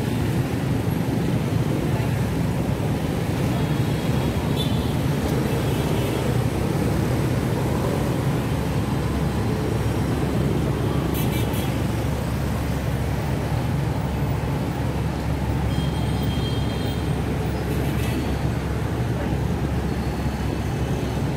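Steady low rumble of a motor vehicle's engine and road traffic, unchanging throughout, with a few faint short high beeps in the background.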